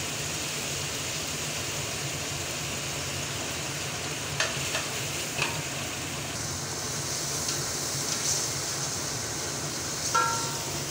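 Potatoes, onions and tomatoes sizzling steadily in hot oil while ground spices are stirred in with a spatula. A few knocks of the spatula against the pot come around the middle.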